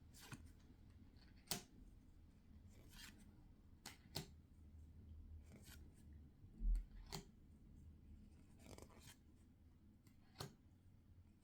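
Quiet handling of Pokémon trading-card booster packs and cards: short crisp rustles and clicks every second or so, with one dull low thump about two-thirds of the way through.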